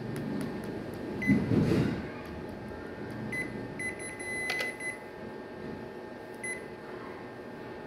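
Ricoh photocopier control-panel beeps: several short, high key-press tones as the touch screen and buttons are tapped, one held a little longer near the middle, over a steady machine hum. A louder muffled low sound comes about a second and a half in.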